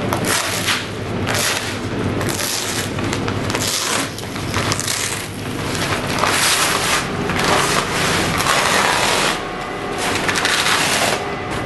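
Polyethylene fabric column form being torn and peeled off a concrete column, the plastic crackling and rustling in repeated loud bursts. A low steady hum runs underneath.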